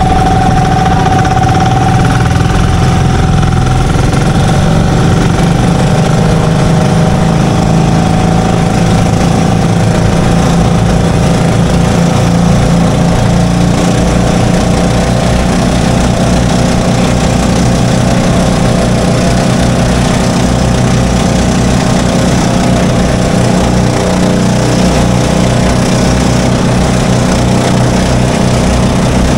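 Twin engines of an outrigger boat running steadily at speed: a loud, even drone that holds without letting up.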